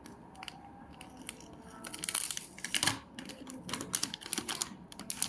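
Packaging being torn open and crinkled by hand, in irregular rustling bursts that pick up about two seconds in.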